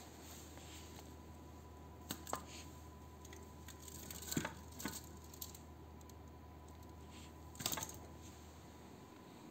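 A few light knocks and clinks as scrap electric-motor stators (steel cores with copper windings) are handled and shifted in a pile, over a faint steady hum. The knocks come about two seconds in, around four and a half seconds in, and loudest near the end.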